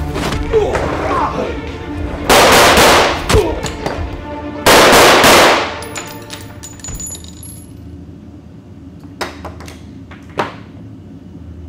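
Two loud bursts of gunfire, each lasting about a second, the second coming roughly two seconds after the first, over tense background music; a couple of short sharp clicks follow later.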